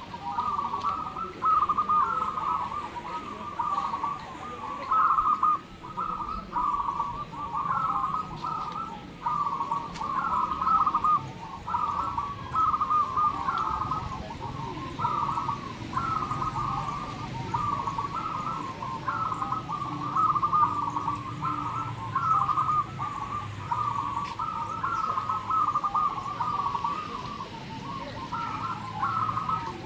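Zebra doves (perkutut) cooing at a dove contest: several birds' stepped, rhythmic coo phrases overlapping without a break.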